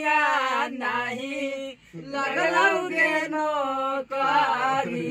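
A man singing a folk song unaccompanied, in long held, wavering phrases with two short breaks for breath.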